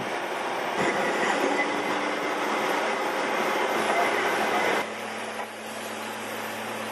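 Loud, steady heavy-machinery noise with a faint high whine in it. It drops sharply about five seconds in, leaving a quieter steady low hum.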